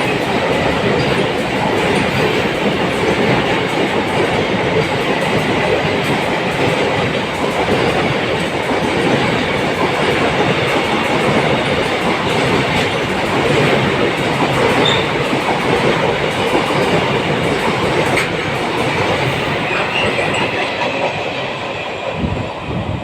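Goods train rolling past on the track, its wagon wheels clattering over the rail joints in a steady loud rumble that begins to fade near the end.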